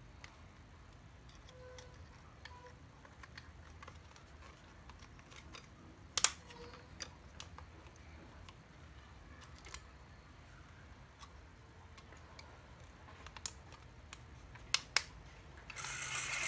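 Small clicks and taps of alligator-clip leads being pressed onto battery contacts, with a few sharper snaps. Near the end the cordless caulking gun's electric motor starts and runs steadily, louder than anything before it, once the clips make contact and the trigger is squeezed.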